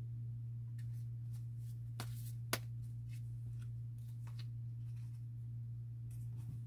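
Tarot cards being handled and laid down on a cloth-covered table: a few light swishes and taps, the sharpest about two and a half seconds in, over a steady low hum.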